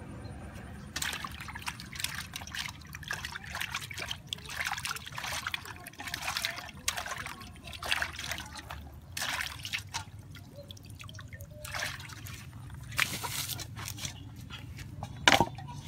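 Hands sloshing and rubbing in a metal bowl of water, washing with irregular splashes and trickles, then a single sharp knock near the end.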